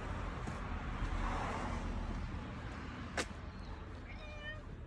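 A domestic cat meows once near the end, a short call lasting under a second, over a low steady rumble; a single sharp click comes about three seconds in.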